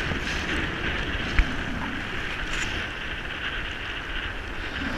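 Choppy bay water washing and splashing against the hull of a Hobie Revo 13 kayak, with wind buffeting the microphone. One sharp knock about a second and a half in.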